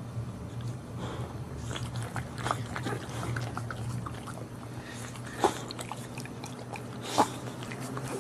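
Newborn Boxer puppies stirring, with small wet mouth and shuffling sounds and two short, sharp squeaks about five and a half and seven seconds in, over a steady low hum.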